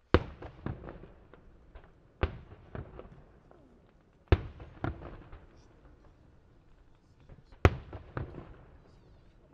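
Aerial firework shells bursting: four loud bangs about two seconds apart, each followed by a string of smaller cracks that die away.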